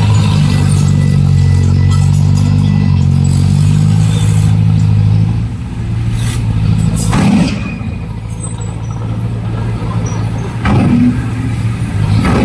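Heavy diesel engine of earthmoving equipment running steadily, easing off a little past five seconds. Two short loud rushes of noise come near seven and eleven seconds.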